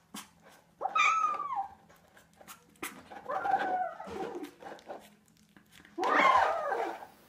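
Ginger kitten giving loud squeaks while it eats, three high calls about two and a half seconds apart, each falling in pitch at the end.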